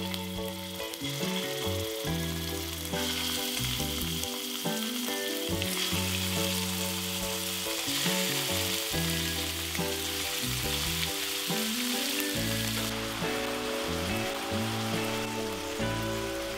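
Cubes of raw beef sizzling in hot vegetable oil in a stainless steel pan, with background music underneath.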